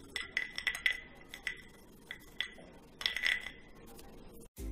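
Crisp fried seedai, small deep-fried rice-flour balls, dropped by hand onto a plate, clinking and rattling in several small clusters. The hard, rattling clatter is the sign that they are fried crisp.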